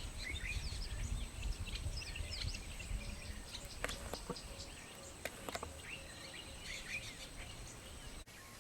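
Faint outdoor bush ambience: scattered short bird chirps and calls, over a low rumble, with a few sharp clicks. A thin, high, steady whine runs under it and cuts off near the end.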